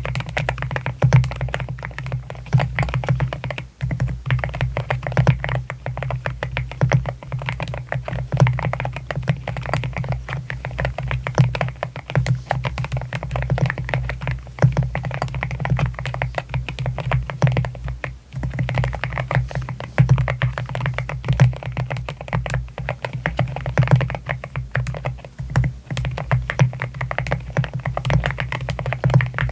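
Fast, continuous typing on an AKKO MU01 mechanical keyboard with Akko Rosewood linear switches in a wooden case, with short pauses about 4 and 18 seconds in.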